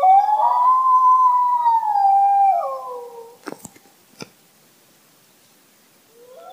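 A single long canine howl that rises at the start, holds, then slides down and fades about three seconds in. Two sharp clicks follow, and music with held notes begins near the end.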